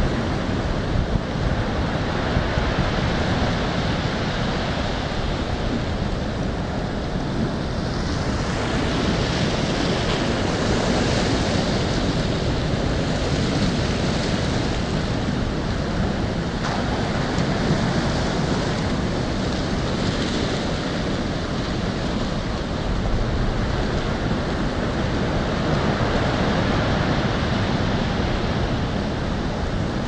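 Ocean waves breaking against a stepped seawall and surf washing in, a steady rushing roar that swells louder several times as waves hit, with wind buffeting the microphone.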